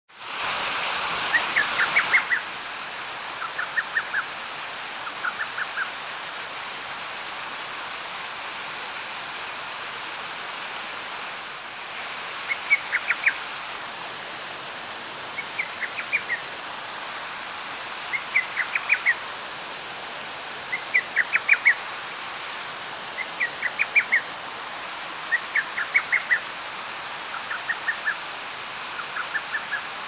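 Lesser cuckoo (hototogisu) singing: short phrases of five or six quick notes, given again and again every two to three seconds, with a pause of several seconds after the first three phrases. A steady hiss runs underneath.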